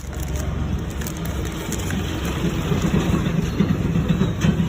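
Steady low rumbling background noise with no clear pattern.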